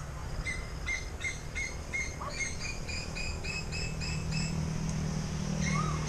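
A bird calling: a run of about a dozen short, even chirps, about three a second, edging slightly higher in pitch, then stopping. A single short rise-and-fall call comes near the end.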